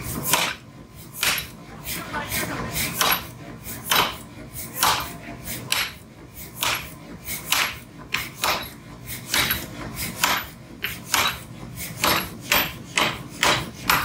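Hammer blows on iron being forged for a tractor trolley hook: a steady, slightly uneven run of sharp strikes, about one to two a second, some with a brief metallic ring.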